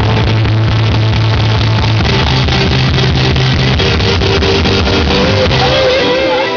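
Rock band playing live: electric guitar strumming over drums with cymbal crashes keeping a steady beat, loud and harsh as picked up by an overloaded camera microphone. About six seconds in, the low held note drops out and the sound thins.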